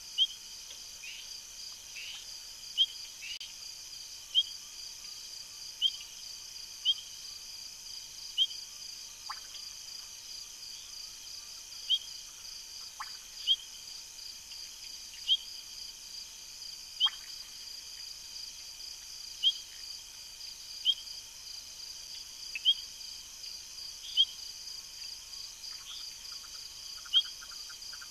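Night chorus of frogs and insects at a waterhole: a steady high drone, with loud short rising chirps repeating about every second and a half. There are a few falling calls, and a rapid run of clicks near the end.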